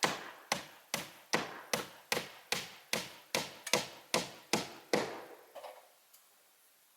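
A steady run of about thirteen hard strikes on wood, about two and a half a second, like a hammer or axe blows, stopping about five seconds in; a couple of faint taps follow.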